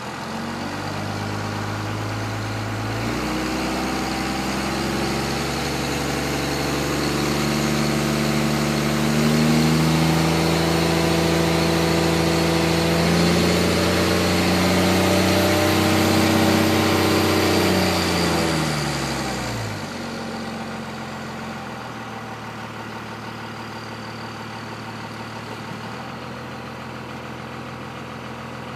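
1998 Dodge Ram's 5.9-litre Cummins turbodiesel inline-six, heard from inside the cab, revs up and is held under load for about fifteen seconds while turbo boost builds, with a faint high whine rising near its peak. About twenty seconds in it drops back to a steady idle.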